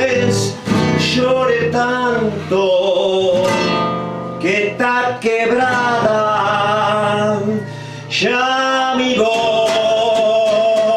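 A man singing a tango in Spanish to his own acoustic guitar accompaniment, with drawn-out sung phrases. About eight seconds in he begins a long held note.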